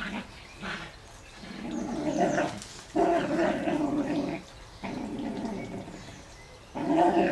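Whippet play-growling while worrying a toy, in four long bouts with short breaks between them.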